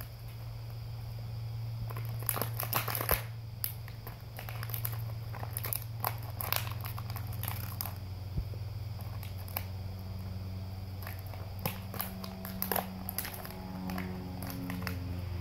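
A golden retriever chewing and biting a plastic water bottle: irregular clusters of crackling crunches as the thin plastic crumples in its teeth. A steady low hum runs underneath.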